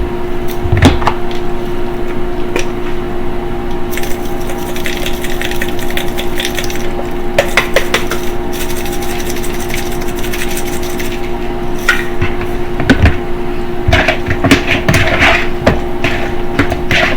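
Kitchen handling noises: irregular clicks and knocks of seasoning containers, a spoon and a bowl being handled, over a steady hum. A hissing sound runs for several seconds in the middle.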